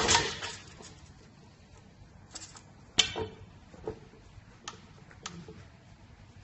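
Handling noise from an aluminium LED street-light housing and its power cable: a bump at the start, then a few scattered light clicks and knocks, the sharpest about three seconds in.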